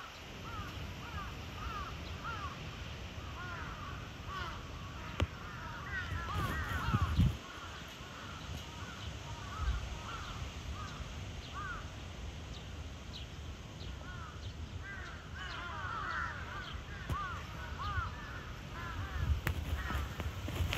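Short chirping calls repeated throughout, coming thick and fast about six seconds in and again around fifteen to seventeen seconds in, over a steady low background rumble.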